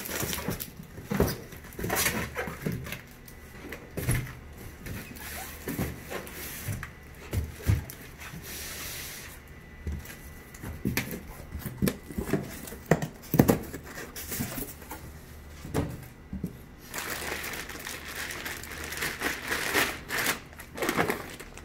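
Cardboard shipping boxes and a styrofoam insulated liner being handled and opened, with scattered knocks, scrapes and clicks. Near the end, a plastic liner bag crinkles and rustles as it is pulled open.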